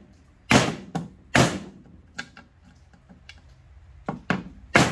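Hammer tapping on a metal tool set in an antique drawer lock, driving the lock mechanism down out of the wooden drawer front. Irregular sharp knocks, three of them louder and several fainter, with pauses between.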